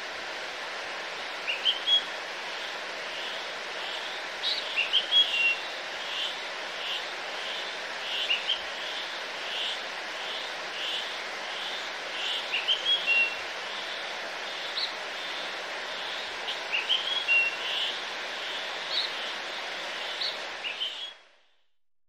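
Birds chirping and whistling, with a run of short repeated notes at about two a second in the middle, over a steady hiss-like outdoor ambience; everything cuts off suddenly about a second before the end.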